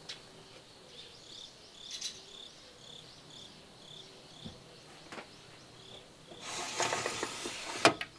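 Insects chirping in a regular high-pitched pulse, about two to three chirps a second. Near the end comes a louder rustling scrape that ends in one sharp knock.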